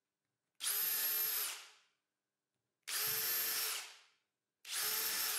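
Cordless drill run in three short bursts of about a second each, with a steady motor whine, as a small bit marks hole positions through an MDF jig into the insert board.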